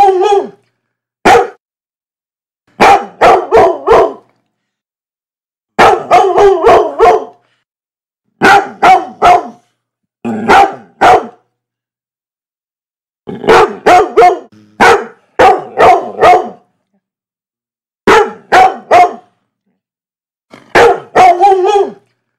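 Dog barking in short runs of two to five quick barks, about nine runs, each followed by dead silence.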